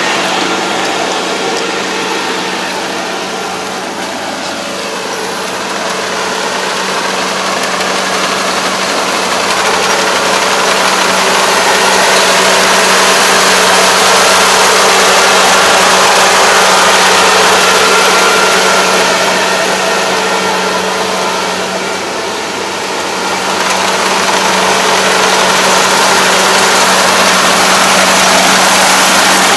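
ANR460 rice combine harvester running under load as it cuts standing rice, a steady engine drone with the clatter of the cutting and threshing works. It grows louder and fades as the machine moves, dipping about four seconds in and again past the twenty-second mark.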